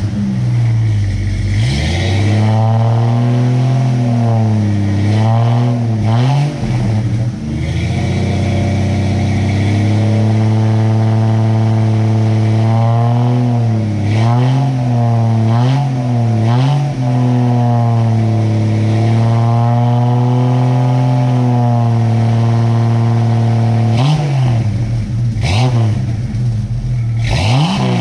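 Jeep Cherokee XJ engine running through a new 2.5-inch exhaust with the muffler fitted backwards. It holds a steady raised engine speed for long stretches, and the pitch drops and comes back up several times as the throttle is eased and reapplied, most busily near the end.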